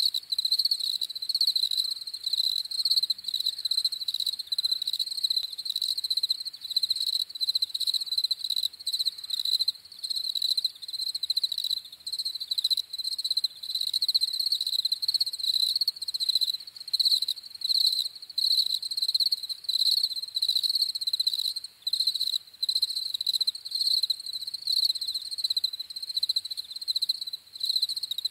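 European field crickets (Gryllus campestris) chirping in a steady, rapidly pulsing high-pitched chorus.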